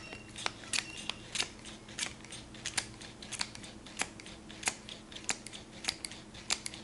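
Wacaco Nanopresso hand pump being worked stroke after stroke, with a sharp click on each stroke, about one every half second or so, while espresso is pressed out through the NS capsule adapter.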